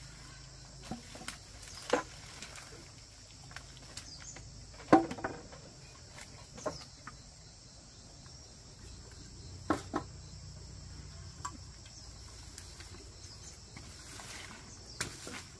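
Steady high insect chirring, with a few short sharp sounds scattered through it, the loudest about five seconds in.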